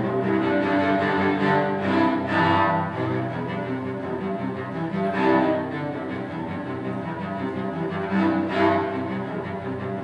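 Solo cello played with the bow: a melody of held notes, changing about every half second to a second, with a few notes swelling louder.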